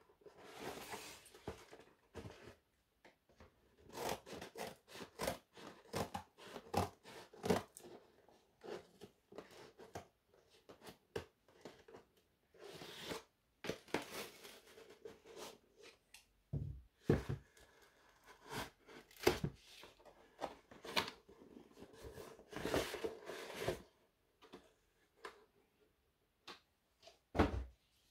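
Scissors cutting through a cardboard mailer in irregular snips, with cardboard crunching and tearing as it is pulled open. A couple of dull knocks on the table, the last near the end.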